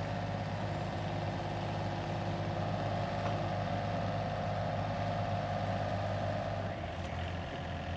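Yanmar mini excavator's diesel engine running steadily under hydraulic load while its post-driver attachment works on a steel solar-mount post, with a steady higher whine from the hydraulics that strengthens through the middle and eases a little near the end.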